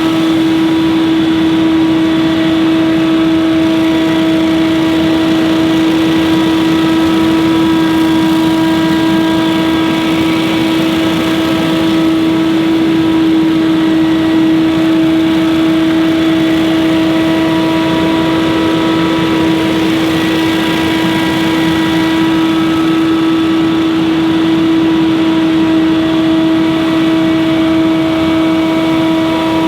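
Scag Windstorm stand-on leaf blower running steadily: a loud, even drone with a strong whine held at one pitch.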